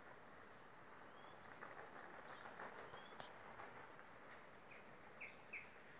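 Faint outdoor ambience with a small bird chirping: a run of quick, high, rising chirps, then three shorter, lower chirps near the end.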